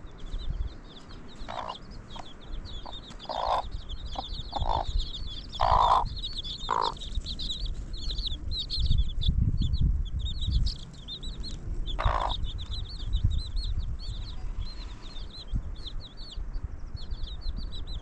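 A brood of chicks peeping without a break in quick, high chirps. A hen clucks several times over them: a run of clucks in the first seven seconds and one more about twelve seconds in.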